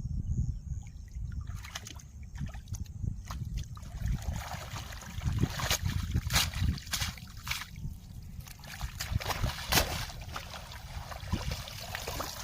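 Water splashing and sloshing in irregular bursts, heaviest in the middle stretch, over a steady low rumble.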